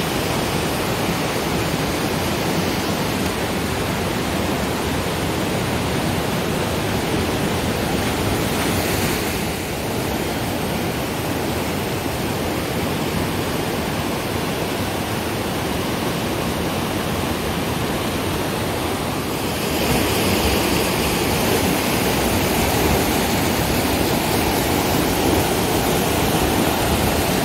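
Waterfall and creek rapids rushing in full spate, a steady, loud roar of water that grows a little louder about 20 seconds in.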